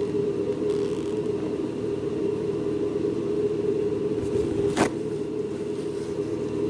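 Steady machine hum, with one sharp click about three-quarters of the way through.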